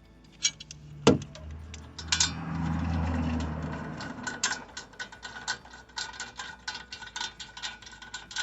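Ratchet wrench tightening brake caliper bracket bolts: a sharp knock about a second in, a steady low whir for about two seconds, then quick, irregular ratchet clicking.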